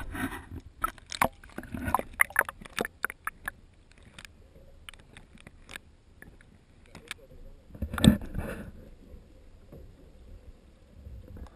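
Sea water splashing and popping around a submerged waterproof action camera as it goes under the surface: a quick run of sharp clicks and splashes over the first few seconds, scattered pops after that, and a louder splash about eight seconds in.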